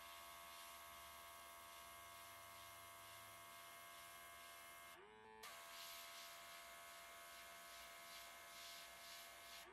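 Handheld nail airbrush spraying paint: its small compressor motor gives a faint steady whine under the hiss of the air jet. Just after five seconds in the hiss stops and the motor drops in pitch for about half a second, then spins back up and the spraying resumes; near the end it drops in pitch again and the hiss stops.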